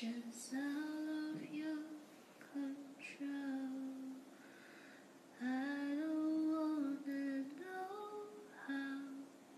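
A woman singing slowly into a handheld karaoke microphone, holding long notes with short pauses between phrases.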